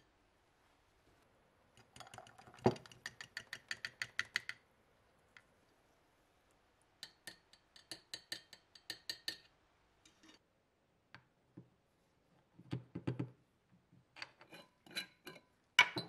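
Small metal parts and alligator clips clicking and clinking against a glass jar: two quick runs of clicks, a few dull knocks, then sharper clinks, the loudest one near the end.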